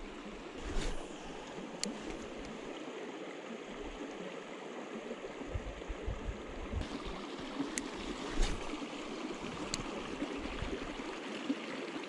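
A small, shallow stream running steadily over rocks, with a few faint sharp ticks.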